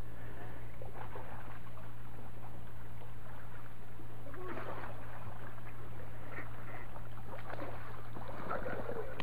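Water splashing as a hooked fish thrashes at the surface and is scooped up in a landing net, in bursts about four and a half seconds in and again near the end, over a steady low hum.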